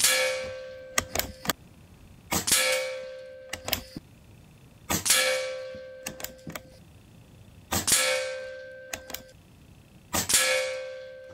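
Shrouded, regulated PCP air rifle (AEA HP Standard Custom) fired five times about two and a half seconds apart. Each shot is a sharp crack with a long ringing tail, followed about a second later by a few short clicks as the bolt is worked for the next pellet.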